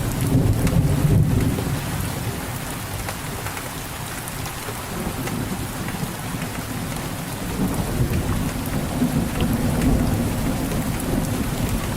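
Steady rain, with low rumbles of thunder near the start and again about eight seconds in.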